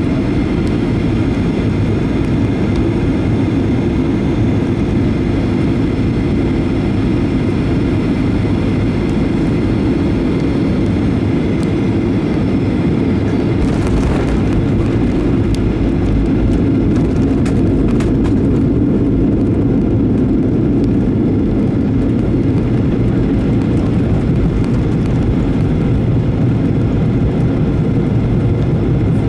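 Cabin noise inside a Boeing 737-800 on short final: steady engine and airflow noise. About halfway through the main gear touches down with a bump, and a low rumble from the wheels on the runway takes over as the aircraft rolls out.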